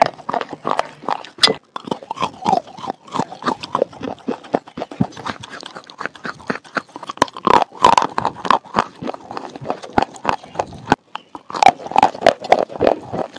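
Close-up chewing of a wet mouthful of red slate: many quick crunches and crackles mixed with wet mouth smacks.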